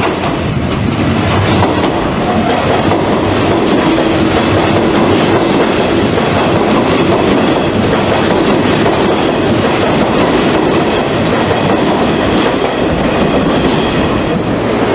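Hanshin 8000-series electric train passing through the station platform without stopping, its cars running past close by.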